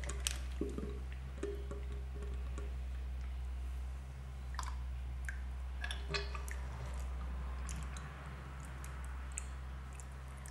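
Old fork oil trickling in a thin stream out of an upturned KTM fork leg into a plastic measuring jug, with a few small clicks and a steady low electrical hum underneath.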